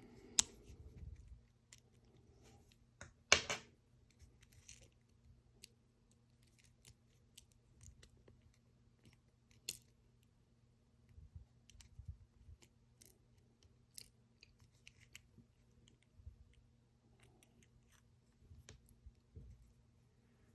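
Sparse small metallic clicks and taps as the parts of a cheap dimple lock cylinder are handled while it is taken apart, with one sharper click about three seconds in.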